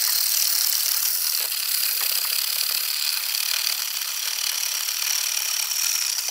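Wire balloon whisk scraping and swishing steadily around a mixing bowl of egg yolks, sugar and cornstarch as warm milk is whisked in to temper the yolks, a continuous hissy scraping.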